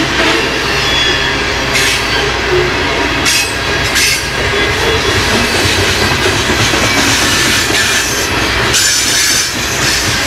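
Freight train rolling past close by: a steady loud rumble of cars and wheels on the rails, with a few sharp clacks from the wheels at rail joints.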